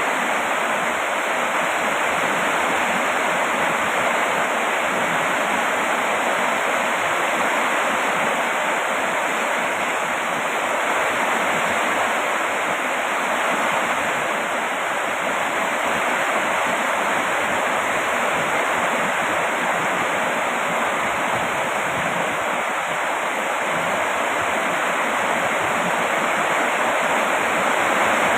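Steady heavy rain: an even, unbroken hiss of falling water that keeps the same level throughout.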